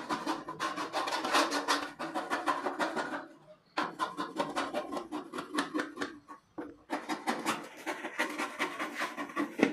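Rapid metal scraping strokes from a hand tool worked against the reel blades of an electric reel grass cutter, in three runs of a few seconds with brief pauses about three and a half and six and a half seconds in.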